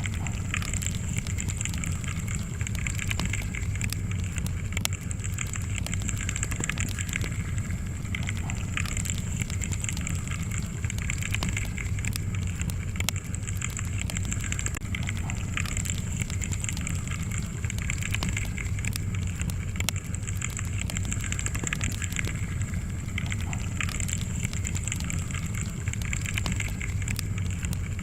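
Fire burning in a fireplace, with a steady low rush and frequent small crackles and pops throughout.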